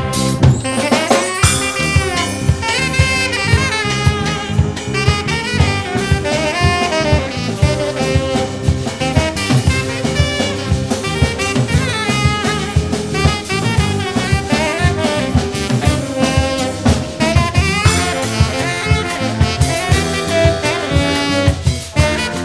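Brass band with drum kit playing a lively, swinging tune, a lead horn running quick phrases over a steady beat.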